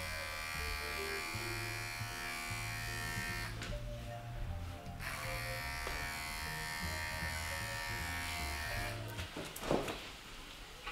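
Electric hair clippers buzzing steadily, over background music with a walking bass line. The buzz drops out briefly about three and a half seconds in and stops about nine seconds in.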